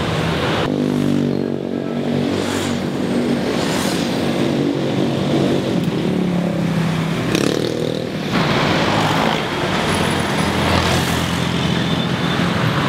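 Street traffic: motor vehicles passing close by, their engine notes sliding down and then up in pitch, with a louder rush of a vehicle going past about eight seconds in.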